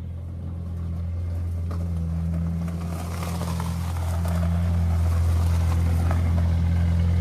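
Audi TT's engine running with a steady low drone. About three seconds in, a broader rushing noise swells and the overall sound grows louder.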